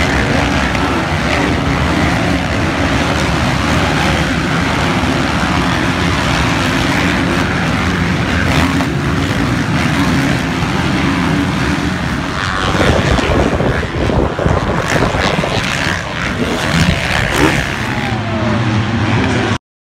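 Several motocross bikes racing, their engines running hard in a dense layered drone. About two-thirds of the way through the sound turns rougher and rises and falls, then it cuts off abruptly near the end.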